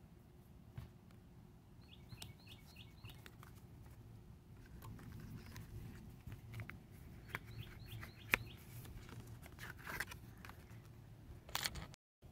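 A songbird calling twice, each call a quick run of four or five short rising chirps, faint over a low traffic rumble and the scattered clicks and rustles of photo cards and plastic sleeves being handled.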